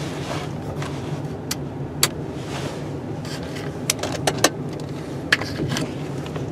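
Snow plow truck's engine running steadily at low revs while the truck reverses, with several sharp clicks and rattles scattered through.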